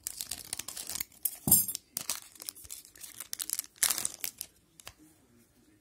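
Scissors cutting open a 2011/12 Pinnacle hockey card pack, and the wrapper crinkling as the cards are pulled out. The rustling comes in irregular bursts, loudest about one and a half seconds in, and dies away after about four and a half seconds.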